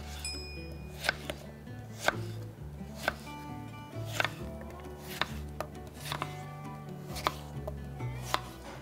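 Chef's knife dicing peeled raw potato on an end-grain wooden cutting board: a sharp knock of the blade hitting the wood about once a second.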